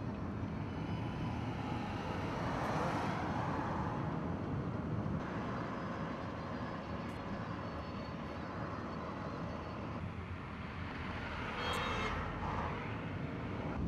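Steady road and engine noise heard from inside a moving car on a highway, swelling briefly twice, about three seconds in and near the end.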